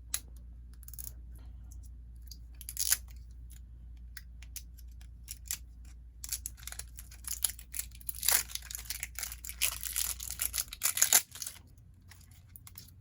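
Small plastic toy packaging being handled and torn open: scattered clicks, then a dense run of crinkling and crackling from about six seconds in that stops sharply about eleven seconds in.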